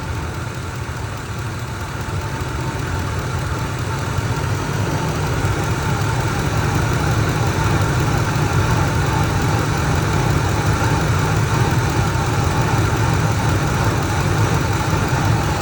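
2003 Ford Expedition V8 engine idling steadily at operating temperature, getting gradually louder over the first several seconds.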